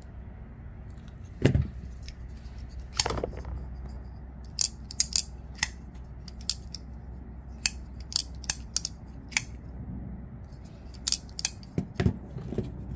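Vosteed Morel folding knife being worked open and shut by hand: a string of sharp metallic clicks as the blade swings and snaps into place, with a heavier knock about a second and a half in and another near the end.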